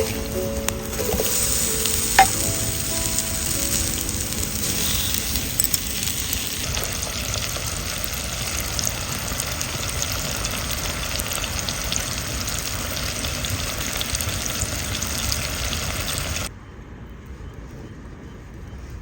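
Food sizzling steadily in an iron frying pan over a campfire, with small crackles and pops throughout; it cuts off sharply near the end.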